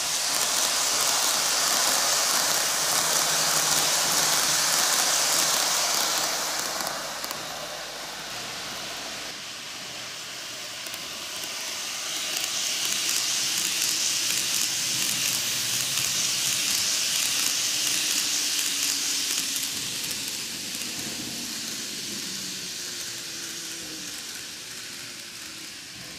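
N-gauge model trains running on track: a steady, rain-like hiss and rattle of small wheels on the rails. It swells loud twice as a ten-car Tokyu 2020 series model passes close by, at the start and again in the middle, then fades near the end while a faint motor hum shifts in pitch.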